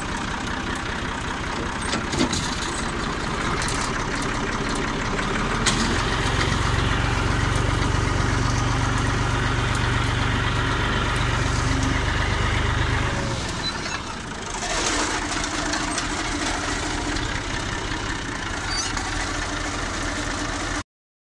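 Massey Ferguson MF 240 tractor's three-cylinder diesel engine running steadily. For about seven seconds in the middle it runs louder and deeper, then it settles back.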